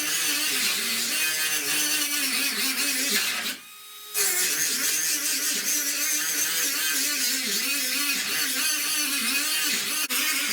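Die grinder grinding rust off a car door's inner corner to get down to solid metal, its pitch wavering as it bears on the metal. It stops for about half a second some three and a half seconds in, then runs again.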